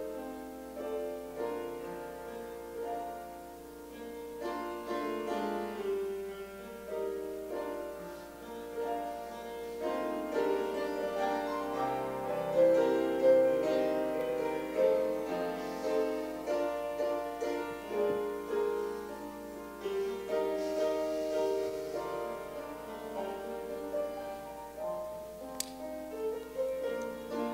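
Piano playing an invitation hymn, chords and melody without singing.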